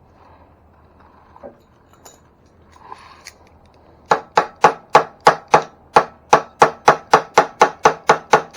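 Quick, even sharp knocks, about four a second, starting about four seconds in after a few faint handling clicks: a part of the e-bike's front wheel and brake assembly being tapped to seat it fully.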